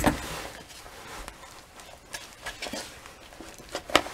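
Tap water running into a plastic tub, stopping about half a second in, then a putty knife stirring Sheetrock 90 setting-type drywall compound in the plastic tub: faint scraping with a few sharp clicks and knocks against the container.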